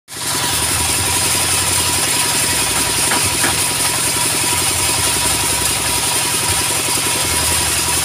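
Horizontal single-cylinder diesel engine of a portable sawmill running steadily in a fast, even thudding rhythm, with a thin steady high whine over it. The saw is not cutting, just turning over while a log is loaded.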